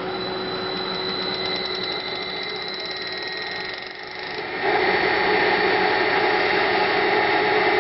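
A 5 horsepower electric induction motor fed by a variable frequency drive runs just after being started, giving a steady hum and electrical whine from the drive. About four and a half seconds in it grows clearly louder, with a stronger, fuller hum.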